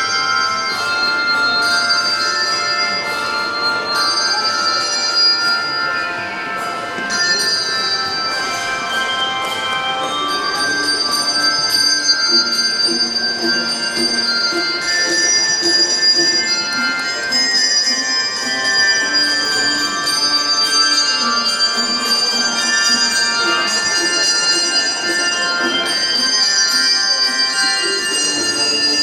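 High school handbell choir playing a worship song: many tuned bells struck in chords, their tones ringing on and overlapping. Lower bells join about ten seconds in.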